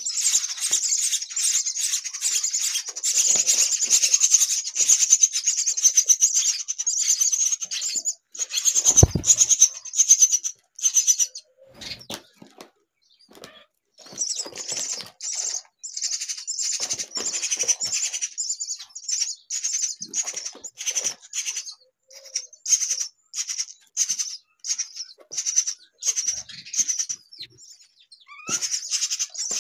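Myna chicks calling with rapid, high-pitched, rasping chirps, packed close together at first, then pausing for a couple of seconds before going on in a steady run of a few calls a second. A single low thump about nine seconds in.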